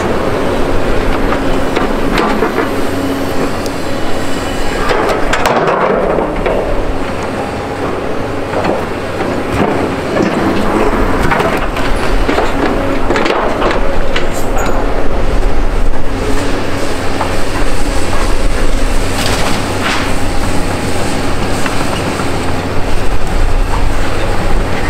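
Doosan tracked excavators working demolition debris: a steady diesel engine drone under the grapple crunching, cracking and knocking through wood and rubble, with repeated clanks.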